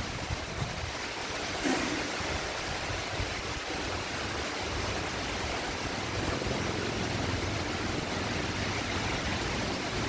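Heavy rain falling in a steady, even hiss, with a brief louder burst about two seconds in.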